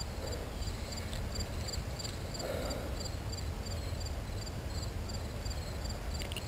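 Insects chirping in an even rhythm, about four high chirps a second, faint, over a low rumble.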